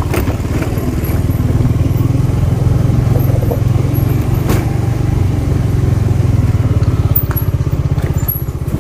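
Motorcycle engine running steadily at low revs, heard from the rider's seat, with a couple of sharp clicks, one near the start and one about halfway.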